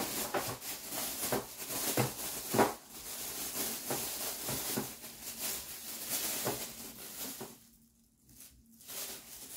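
Off-microphone rummaging and handling: a run of small clicks, knocks and rustles as things are picked up and moved, going quiet for about a second shortly before the end.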